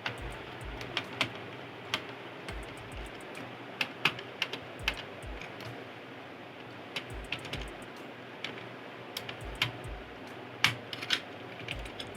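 Irregular small clicks and taps of a screwdriver and screws being worked out of a circuit board in an AV receiver's front panel.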